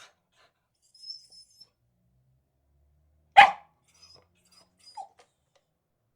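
A beagle gives a single short bark about three and a half seconds in, with a few faint high squeaks around it.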